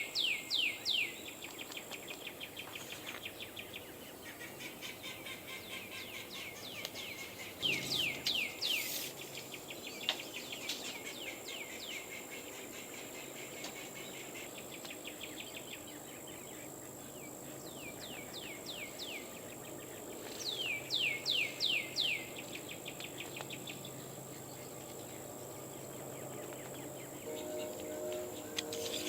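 Outdoor bird song: bursts of rapid, repeated downward-sliding chirps every few seconds, over a steady high-pitched whine. Faint music comes in near the end.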